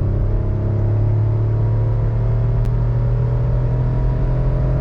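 Suzuki Alto's 660cc three-cylinder engine pulling hard in third gear at high revs, heard from inside the car, its drone rising steadily in pitch as the car gathers speed.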